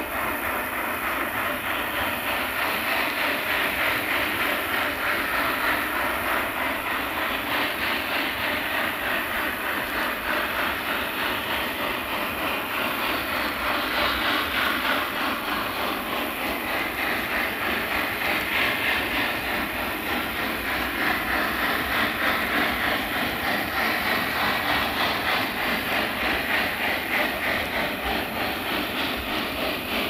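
Steam-hauled freight train working upgrade: a steady, dense roar of the laboring pusher locomotive and the rolling cars.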